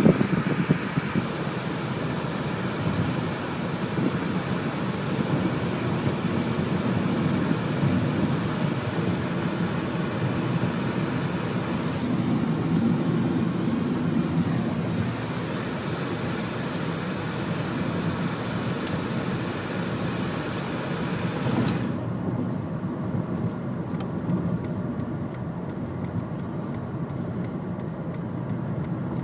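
Steady low rumble of a car driving, engine and road noise with no distinct events. About three quarters of the way through, the upper hiss cuts out suddenly and the rumble goes on sounding duller.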